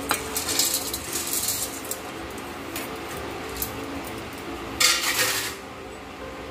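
Roasted chana dal, dry coconut pieces and peeled peanuts tipped by hand from a steel bowl into a steel mixer-grinder jar, the hard pieces rattling and clinking against the metal, with a louder rattle about five seconds in.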